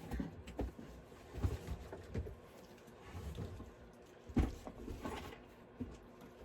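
A cardboard gift box being handled and cut open: irregular thumps, scrapes and rustling, with a sharper knock about four seconds in.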